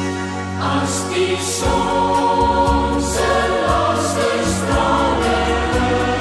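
A cappella choir singing an Afrikaans song in close harmony, with the sung s-sounds standing out every second or so.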